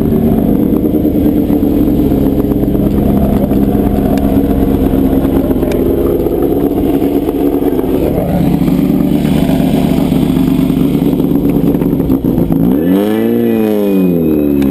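Air-cooled VW flat-four engine of a Class 5/1600 off-road race car running hard at speed. Near the end the revs climb sharply and then fall back.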